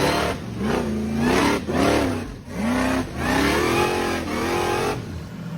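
Car engine revving in a series of rises and falls in pitch, one rev after another, cutting off about five seconds in.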